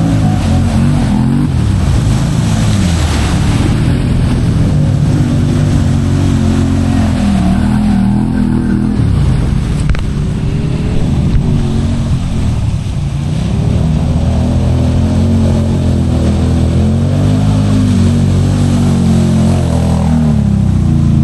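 ATV engine running as the machine is ridden along a trail, its pitch rising and falling again and again with the throttle, over rough noise.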